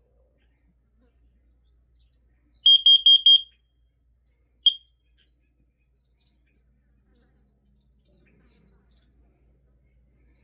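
Carbon monoxide alarm sounding on test: four quick, loud, high-pitched beeps in under a second, the four-beep carbon monoxide warning pattern, then a single beep about a second later.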